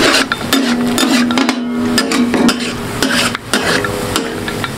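Flat metal spatula stirring and scraping chicken and spice paste on a large steel tawa: a run of quick clacks and scrapes, with the food frying and sizzling and a low steady ringing tone under the strokes.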